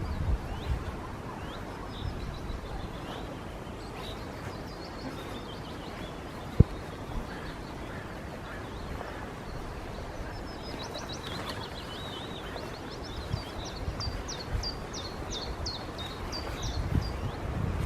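Woodland songbirds chirping and singing, with a quick run of short chirps in the second half, over a low rumbling background. A single sharp thump about six and a half seconds in.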